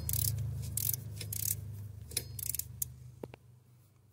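Metal clinks and clicks of a deep 12 mm socket and ratchet working on a glow plug fitting in a Duramax diesel's engine bay: a handful of short, uneven metallic bursts in the first few seconds, then two faint clicks, over a low hum that fades out near the end.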